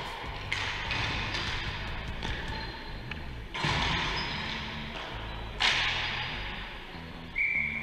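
Three sharp thuds of ball hockey play, the hard ball striking boards, sticks or pads, the middle one loudest, over steady background music. A high steady tone starts near the end.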